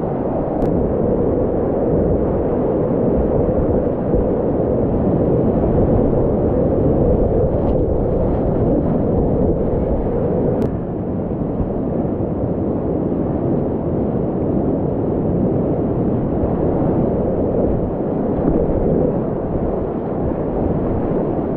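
Loud, steady rush of whitewater rapids, heard from a kayak in the middle of the white water, easing slightly about halfway through.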